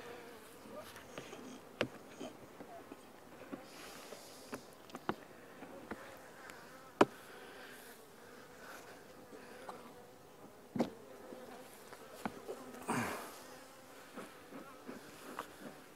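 Honey bees buzzing steadily around a nuc box, with scattered sharp clicks and knocks of the box being handled, the loudest about seven seconds in. A short whoosh comes near the end.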